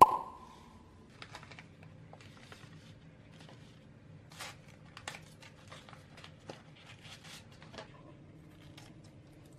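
The last bell-like note of intro music rings at the start and fades within a second. Then paper tea-bag packets are handled and torn open: a string of soft crinkles and sharp paper clicks, thickest in the middle stretch.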